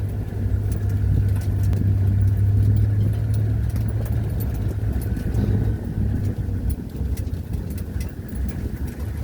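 Engine of a safari vehicle running steadily, a low, even hum.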